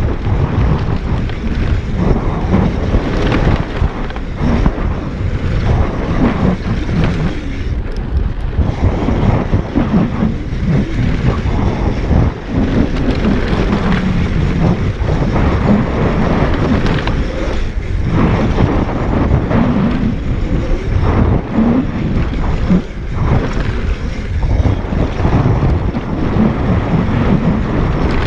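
Wind buffeting an action camera's microphone as a mountain bike descends a dirt trail at speed, with the tyres rolling over loose dirt and gravel and the bike rattling irregularly over bumps.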